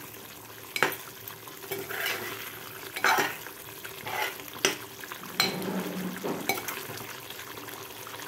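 A metal spoon stirring thick, simmering chicken curry in a metal pot, scraping through the gravy with several sharp clinks against the pot, over the faint sizzle of the curry cooking on the flame.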